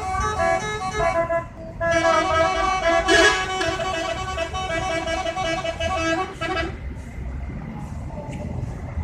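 Bus 'telolet' musical air horns, several horn tones sounding together. They break off briefly about a second and a half in, sound again, and stop about seven seconds in, leaving a low background rumble.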